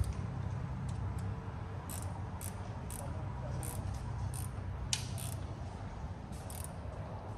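Hand ratchet wrench clicking in short strokes, roughly every half second, as bolts are tightened down, over a steady low hum.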